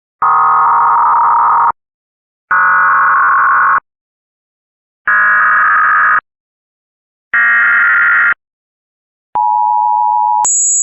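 Emergency Alert System signalling: four harsh buzzing data bursts of about a second each with short silences between, each higher in pitch than the last. Then about a second of the steady two-tone attention signal, which switches to a brief, very high-pitched steady tone near the end.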